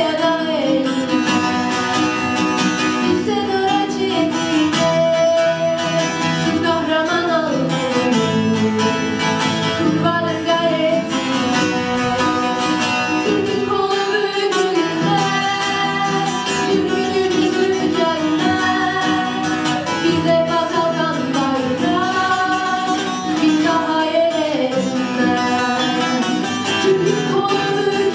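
A female solo voice singing a patriotic Azerbaijani song, accompanied by acoustic guitar and bağlama.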